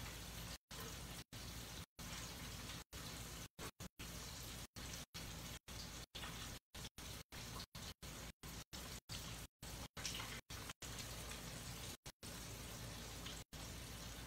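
Catfish frying in hot oil: a faint, steady sizzle, broken by many brief dropouts in the audio.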